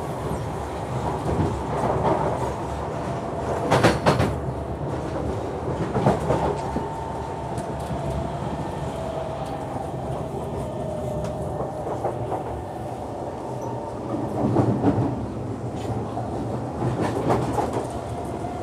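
Cabin noise of an SMRT C151 Kawasaki metro train under way: a steady rumble of wheels on rail, with sharp clickety-clack knocks twice a few seconds in and twice more near the end. A faint whine drifts lower in pitch through the middle.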